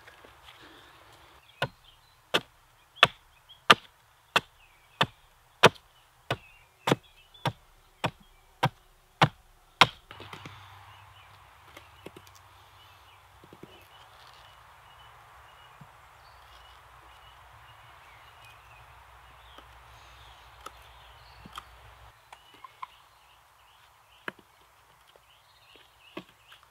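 Axe chopping into a branch on a wooden chopping log: about fourteen sharp strikes at roughly one and a half a second, cutting angled notches into the wood. After that, faint scraping clicks of a knife whittling the stick.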